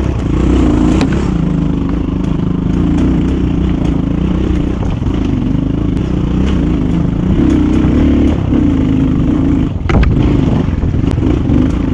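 GPX 250 motorcycle engine running as it is ridden, its pitch wavering slightly, with scattered knocks and rattles. There is a sharp knock about ten seconds in.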